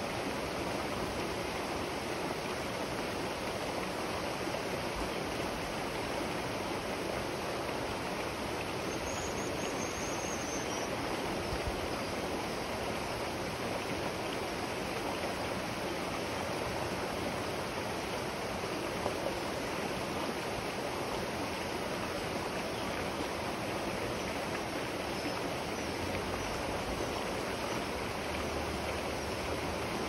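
River water rushing steadily, an even unbroken wash of flowing-water noise. A bird gives one faint high call about nine seconds in.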